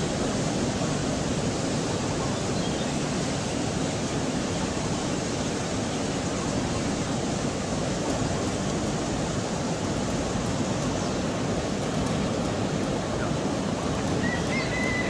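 Heavy ocean surf breaking, heard as a steady, even rush of noise. A short faint whistle sounds near the end.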